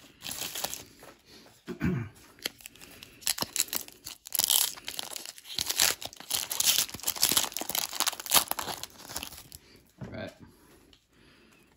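Foil trading card pack being torn open and crinkled by hand: a dense run of crackling and ripping that is loudest in the middle and dies away about ten seconds in.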